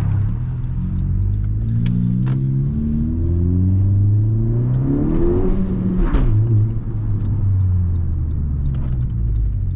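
Honda Civic Si's turbocharged four-cylinder, fitted with an AWE exhaust, pulling hard under acceleration: the engine note rises steadily, breaks off a little over five seconds in at a gear change, then rises again through the next gear.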